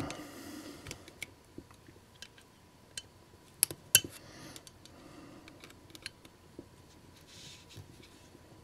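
Light clicks and taps of a metal chip lifter prying at a plastic truck clipped into a model locomotive's metal chassis. Two sharp snaps come close together a little under four seconds in.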